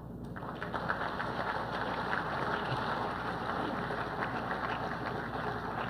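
Audience applauding: a steady patter of many hands clapping that rises in a moment and holds evenly.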